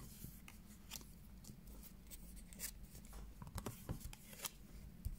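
Tarot cards being turned over and laid down on a wooden table: faint, scattered light taps and flicks of card against card and wood, over a low steady hum.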